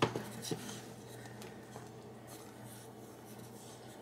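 Wooden spoon stirring and scraping the bottom of a stainless steel pot of strawberry jam at a hard rolling boil, the boil that cannot be stirred down, which sets the pectin. A few sharp knocks of the spoon against the pot come in the first half second, then quieter scraping.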